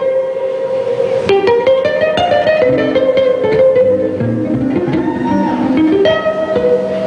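Live instrumental music: plucked string notes over a held, sustained tone, with no singing.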